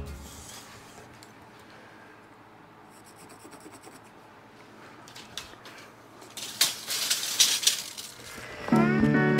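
Metal clicking and rattling for a second or two, from a steel tape measure being pulled out and handled against lumber, after some seconds of quiet room tone. Acoustic guitar music comes in near the end.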